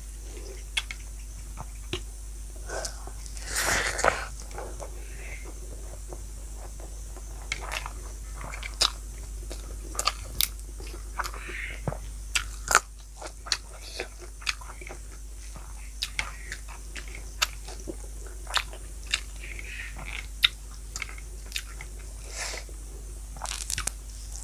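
A person eating close to the microphone: crunchy bites and chewing, with many sharp, irregular mouth clicks and a few louder crunches.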